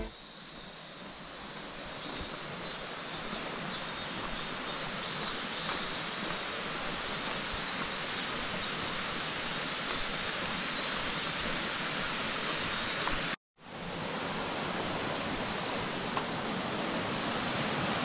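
Steady rushing noise of Fudō Falls, a five-tiered waterfall about 40 m high, growing louder over the first few seconds as it is approached. The sound drops out for a moment about thirteen seconds in.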